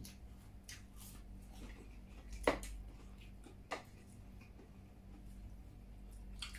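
Mouth and hand sounds of people eating food with their fingers: light chewing and scattered small ticks, with a sharp click about two and a half seconds in and a smaller one about a second later, over a steady low hum.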